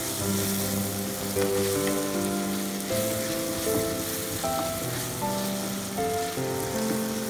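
Chopped tomatoes and onions sizzling in hot oil in a pan while being stirred with a wooden spatula, a steady hiss throughout. Background music with sustained notes plays over it.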